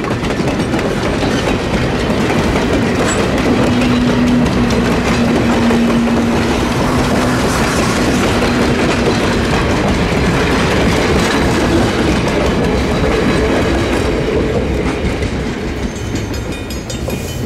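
Vintage passenger coaches rolling past, wheels clicking over the rail joints, with a steady low tone for a few seconds in the middle. The sound fades near the end as the last car goes by.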